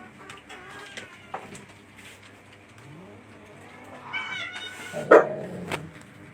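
Cats meowing, with the loudest, drawn-out meows about four to five seconds in, and a few brief clicks between calls.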